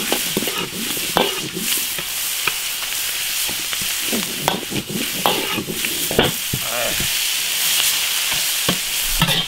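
Beef tripe stir-frying in hot oil in an iron wok: a steady sizzle, with frequent short clinks and scrapes as a metal ladle stirs and tosses it against the wok.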